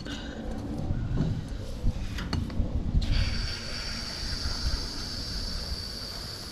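A few handling knocks, then a steady high hiss starting about three seconds in, as a flat wheelbarrow tire is filled with Great Stuff Big Gap Filler expanding foam from an aerosol can.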